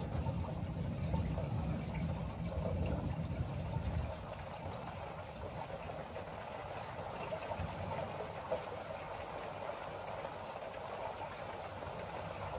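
Steady rain falling in a thunderstorm. A low rumble of thunder dies away about four seconds in, leaving the even hiss of the rain.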